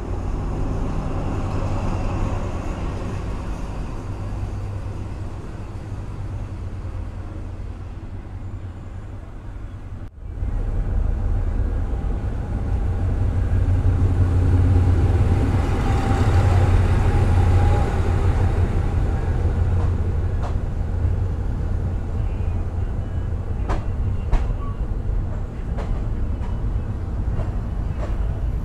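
Third-class train of Thailand's Eastern Line running along the track, a steady low rumble and rattle heard from aboard. The sound cuts out briefly about ten seconds in and comes back louder. A few sharp clicks follow in the second half.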